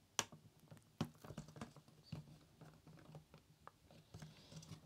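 Faint, irregular clicks and scrapes of fingers working a circuit board against the plastic clips and posts of a CD player's chassis, with two sharper clicks in the first second.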